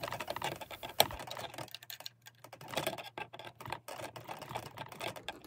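Small, irregular metal clicks and ticks as pliers grip and turn the axle nut on an RC plane's ski mount, with one sharper click about a second in.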